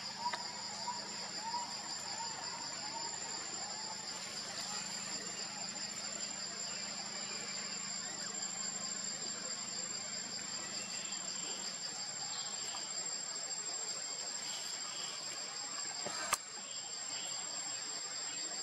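Steady high-pitched insect chorus: a fast, even pulsing buzz with a thin continuous whine above it. A few short chirps in the first second or two, and a single sharp click near the end.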